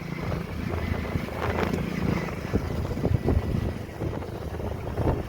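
A motor vehicle running, with wind buffeting the microphone and scattered short knocks.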